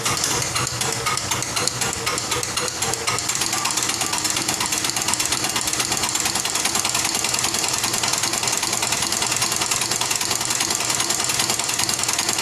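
Isuzu 4BC2 four-cylinder diesel engine running with a steady, rapid clatter.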